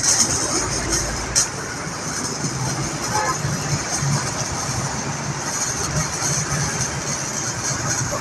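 MIG welding arc from a Jasic MIG 350 welder, a steady crackling sizzle that strikes up suddenly at the start, with a sharp crack about a second and a half in.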